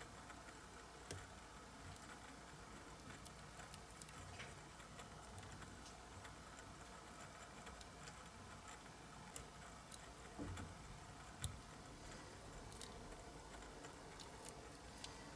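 Faint handling sounds: a few scattered light clicks and soft taps as hands peel a cast part from a silicone rubber mold and press the mold pieces together, the sharpest click about three quarters of the way through, over quiet room tone.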